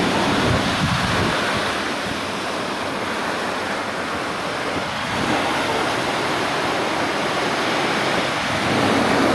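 Storm surf breaking and washing on a sandy beach: a continuous heavy rush of waves that swells slightly near the end.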